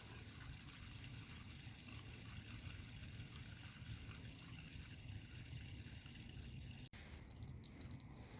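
Faint, steady running water from an electric water heater's drain faucet during a power flush to clear sediment from the tank. About seven seconds in, the sound changes abruptly to a patchier splashing.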